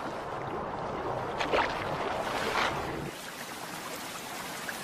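Rushing river water, a steady wash with two louder swishes in the middle; the low rumble under it drops away about three seconds in.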